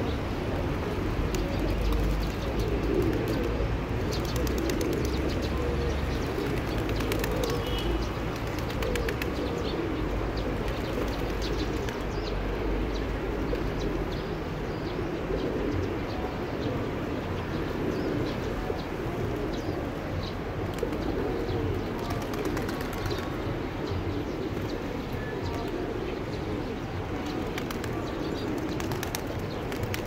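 A large flock of feral pigeons cooing together in a dense, continuous chorus, with scattered light clicks and a low rumble underneath.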